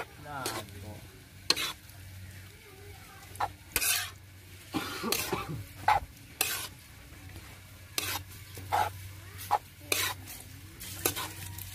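Metal spatula scraping and knocking against a wok as rice noodles are tossed and stirred, in irregular strokes about once a second, over the sizzle of the frying noodles.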